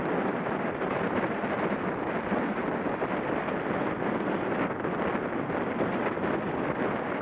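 Steady rush of wind over a track cyclist's camera microphone at about 30 mph, an even noise with no clear tones or strokes.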